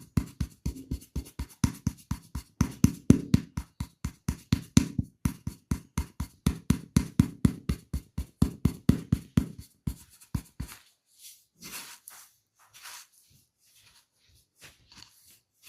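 Rapid, evenly spaced hand strikes of a percussive tapping massage, several a second, which stop about two-thirds of the way through. Soft, scattered rubbing sounds follow.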